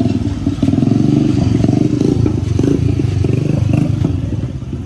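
An engine running steadily, its sound easing off slightly near the end, with some light clatter.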